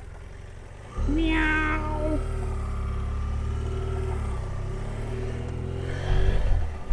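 A man imitating a cat, one drawn-out 'miau' about a second in, with the motorcycle's engine running steadily underneath as it rides off.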